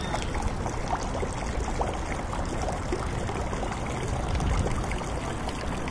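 Steady outdoor rushing noise with a heavy low rumble, even throughout.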